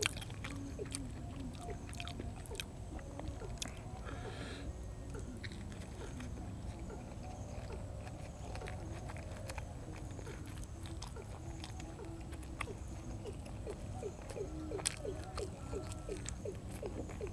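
Close-up chewing and biting of raw shrimp salad with fresh vegetables: a steady run of small wet clicks and crunches.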